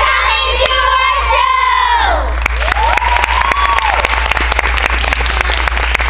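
A group of children's voices cheering together, held and then falling away about two seconds in. Then an audience applauding with dense clapping, and one voice calling out briefly over it.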